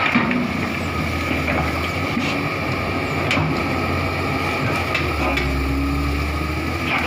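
Komatsu PC200 hydraulic excavator's diesel engine running under load with a steady high whine, its deep note swelling again near the end as the bucket works. Scattered sharp cracks and knocks of branches and wood breaking under the bucket.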